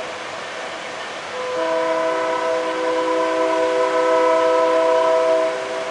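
Diesel freight locomotive's air horn sounding one long blast of several notes at once, starting about a second and a half in and stopping near the end, over the steady rumble of the passing train.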